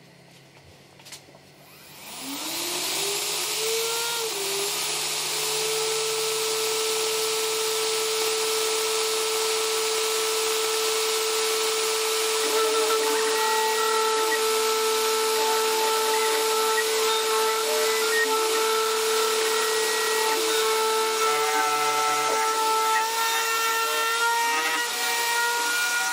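4040 CNC router's spindle spinning up about two seconds in, its whine rising in pitch and then holding steady, with a hiss over it as a 2 mm tapered ball-nose bit carves a 3D relief into wood.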